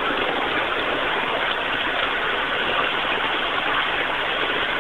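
Steady rushing running noise of a ride-on 5-inch gauge loco driven by a brushless electric motor through a chain drive, climbing a steep grade under power.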